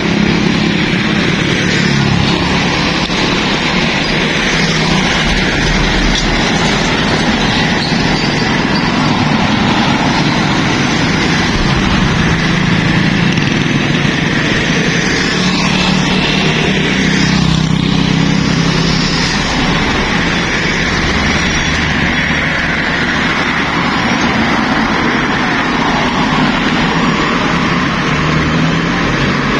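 Steady roadside traffic noise: the engines and tyres of passing motorbikes and trucks.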